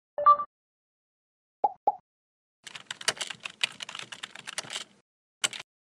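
Computer keyboard typing: a rapid run of key clicks lasting about two seconds, followed by a single click near the end. Before it come a short tone and two quick blips.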